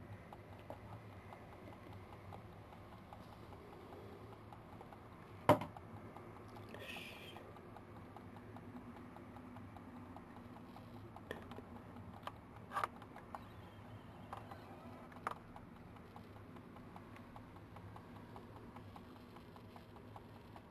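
Badgers and foxes feeding on scattered food: faint, irregular clicking and crunching over a low steady hum, with one sharp click about five and a half seconds in and a few more clicks later on.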